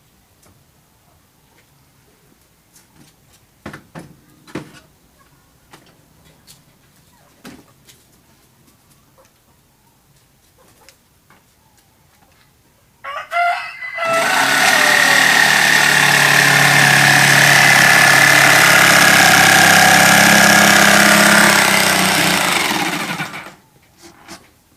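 Electric jigsaw cutting plywood: after a brief start about 13 seconds in, it runs loud and steady for about nine seconds while cutting a notch, then stops shortly before the end. Before the cut, a few light knocks.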